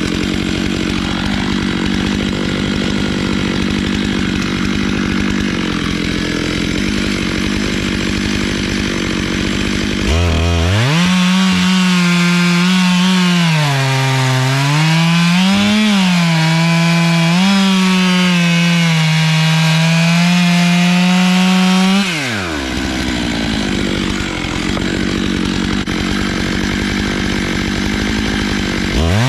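Stihl MS 661 chainsaw running hard on a log mill, sawing through a log. About a third of the way in, the engine note becomes clearer and wavers up and down with the load. Later its pitch drops away and the noisy running returns, and it revs up again near the end.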